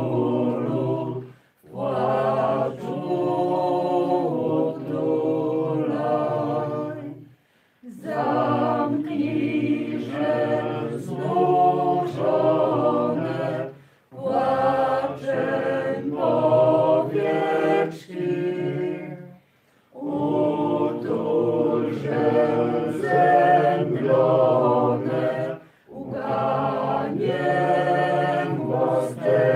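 Voices singing a hymn unaccompanied, in phrases of about six seconds, each ending in a short pause for breath.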